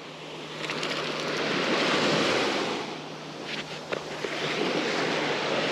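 Small waves breaking and washing up the sand at the shoreline, swelling twice.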